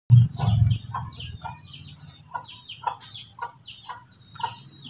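Chickens calling: a run of short, falling, high-pitched peeps about twice a second, with lower clucking notes among them. A low rumble in the first second is the loudest sound.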